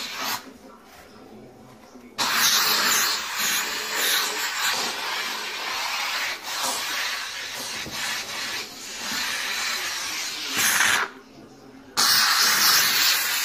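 McCulloch MC1385 canister steam cleaner jetting steam from its nozzle with a loud, steady hiss, on a high steam setting. The steam stops briefly after the start, comes back about two seconds in, cuts out for about a second near the end, then comes back.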